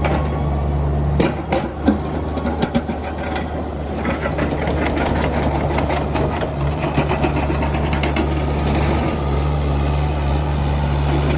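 Kubota 163 mini excavator's diesel engine running steadily, with sharp metal clicks and knocks in the first few seconds and a dense clattering rattle through the middle.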